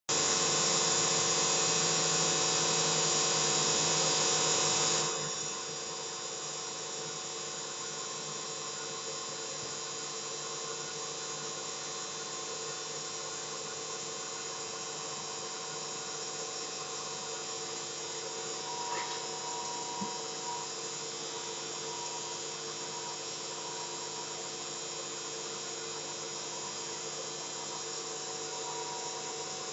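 Vx1 lightning monitor's audio output: a steady electronic whine of many held tones, which drops to a quieter level about five seconds in. There is a faint click about twenty seconds in.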